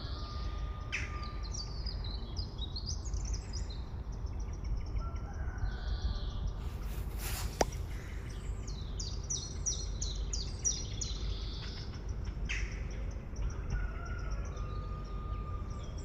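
Small birds chirping and twittering in quick high notes, on and off, over a steady low rumble. There is a single sharp click a little past the middle.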